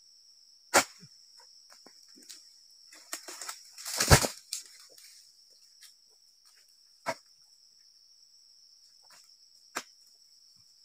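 Oil palm harvesting with a long-poled dodos chisel: sharp knocks, and about four seconds in a rustling crash that ends in a heavy thud as cut palm fronds and fruit bunches come down. Insects drone steadily throughout.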